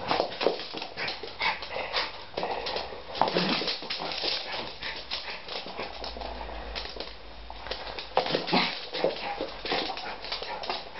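Schipperke dogs romping on a hard floor: a busy, irregular clatter of short clicks and scuffs, with a few brief dog noises standing out now and then.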